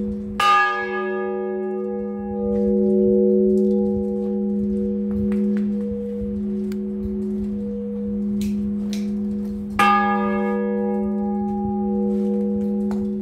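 Bronze church bells of the 1939 Pasqualini set, heard close inside the belfry: a bell is struck twice, about nine seconds apart, each stroke bright at first and then dying away, over a deep steady hum that rings on the whole time.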